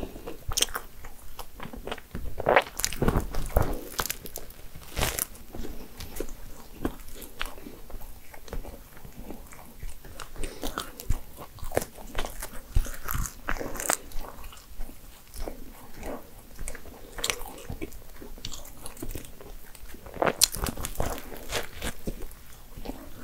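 Crisp crust of a laugen (pretzel-dough) croissant crackling as it is pulled apart by hand, with crunchy bites and chewing; the sharpest crackles come a few seconds in and again near the end.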